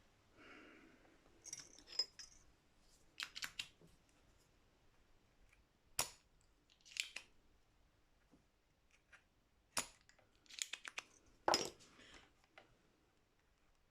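Small hand tools working at a guitar's wiring while a wire is pulled free: scattered faint clicks and a few quick clusters of snips, the sharpest about six seconds in and near the end.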